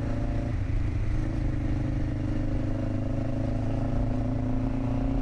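Motorcycle engine running at a steady speed while riding, with wind and road noise; the note dips slightly about a second in and then slowly creeps up.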